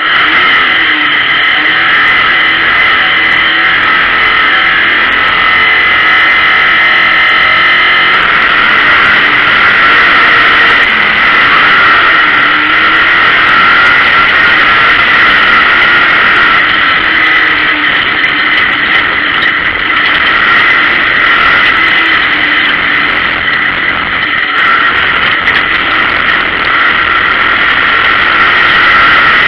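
Race car's engine heard from inside the stripped cockpit, running loud and hard, its pitch rising and falling as the driver accelerates and lifts around the track, with the whole cabin full of steady mechanical and road noise.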